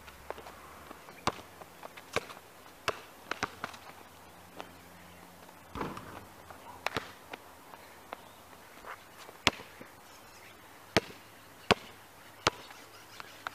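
A basketball bouncing on an outdoor asphalt court in sharp, irregular smacks, with players' footsteps and shoe scuffs. The loudest bounces come at a steady dribbling pace in the last few seconds.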